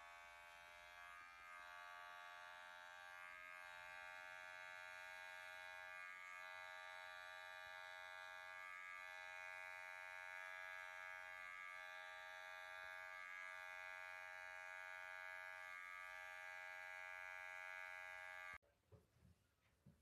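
Electric pet hair clippers running with a steady buzz while trimming the fur on a cat's paw; the buzz cuts off suddenly near the end.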